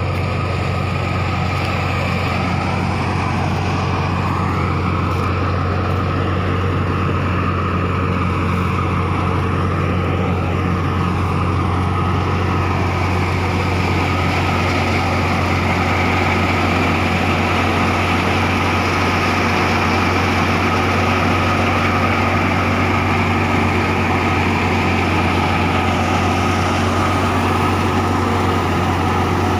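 Wheat thresher running steadily under power from a New Holland Dabung 85 tractor, with the tractor engine's steady drone and the thresher's drum and blower whirring.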